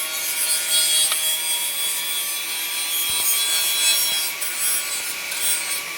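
TIG welding arc on stainless steel: a steady high-pitched hiss.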